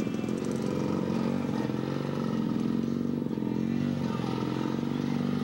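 Vintage two-stroke snowmobile engines running: a steady low drone with slight swells in pitch.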